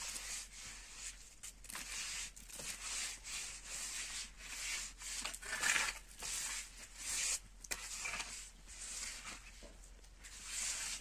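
Steel mason's trowel scraping and spreading mortar along the top of concrete blocks, in a string of short strokes about one a second.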